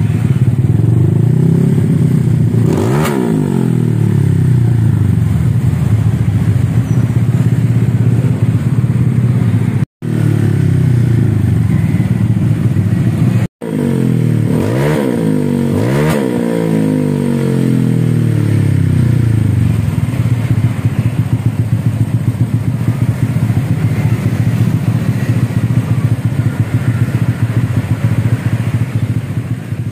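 Honda Vario scooter's single-cylinder four-stroke engine through an aftermarket racing exhaust, running loud and steady, revved up and back down about three seconds in and twice more in quick succession around the middle. The sound cuts out for an instant twice and fades near the end.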